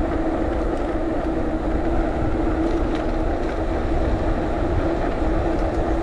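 Electric mountain bike riding uphill: its motor drones at a steady pitch, over a low rumble of wind on the microphone.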